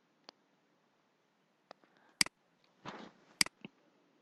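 Computer mouse button clicks, two sharp ones about two and three and a half seconds in, each a quick press-and-release pair, with a few fainter ticks and a soft short hiss near three seconds.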